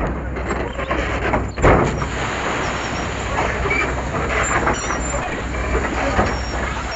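Excavator's diesel engine running steadily with metallic clatter, and one sharp knock about a second and a half in.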